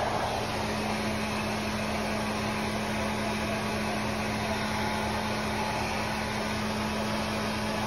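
Small handheld hair dryer running steadily, its air rushing out with a steady low hum under it as it dries a wet newborn kitten.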